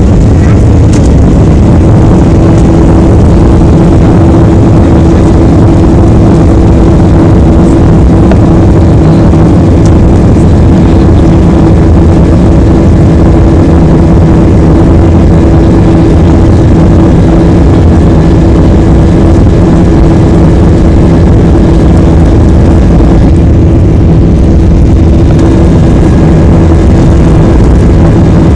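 Boeing 737-800's CFM56 jet engines running at high power, heard from inside the cabin on the takeoff roll: a loud, steady rush of engine and runway noise with a steady hum underneath.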